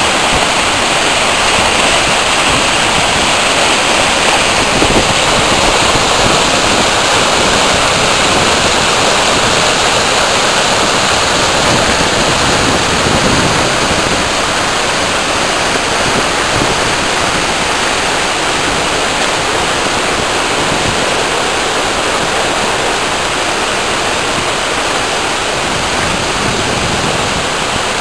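Floodwater in a swollen creek rushing and churning over a low concrete dam: loud, steady whitewater noise.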